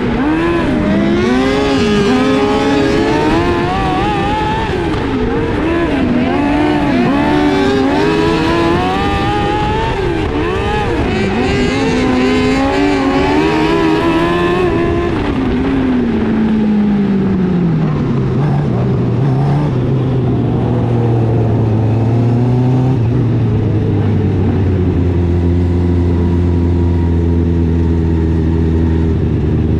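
Small dirt-track race car's engine heard from on board, revving up and down sharply through the corners lap after lap. About halfway through the pitch glides down and settles into a low, steady run as the car slows.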